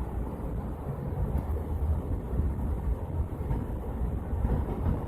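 Steady low road and tyre rumble with a low engine drone inside the sealed cabin of a stock 2018 Camaro SS cruising at highway speed in sixth gear, its 6.2-litre LT1 V8 turning only about 1,700–1,800 rpm.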